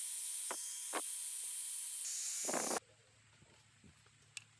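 Electric angle grinder with an abrasive disc grinding rusty steel: a steady high hiss with a few short scrapes and a louder rasp, cutting off abruptly nearly three seconds in. A faint low hum follows.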